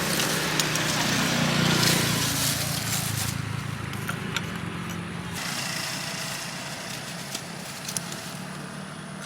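A motor vehicle's engine passing close by and fading away, with a few light clicks scattered through.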